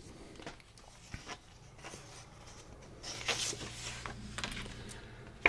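Printed paper card handled close to the microphone: soft crinkles and taps, then a fuller rustle of paper about three seconds in.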